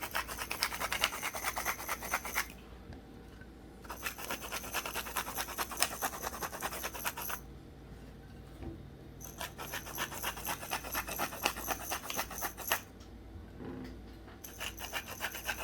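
Pepper mill being twisted, grinding pepper with a rapid rasping clicking, in four bouts separated by short pauses.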